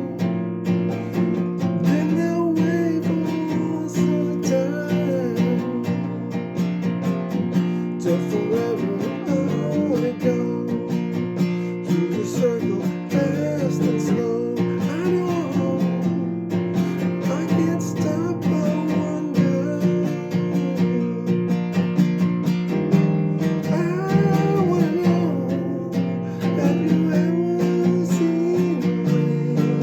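Acoustic guitar strummed in a steady rhythm, with a wavering melody line above it.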